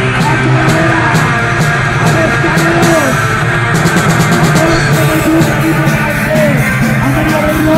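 Live rock band playing loud: electric guitars and bass over a drum kit with cymbal crashes, and a quick run of cymbal strokes about four seconds in.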